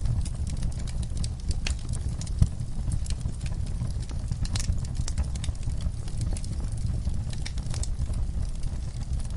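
Wood campfire crackling and popping: irregular sharp snaps over a steady low rumble, with one louder pop about two and a half seconds in.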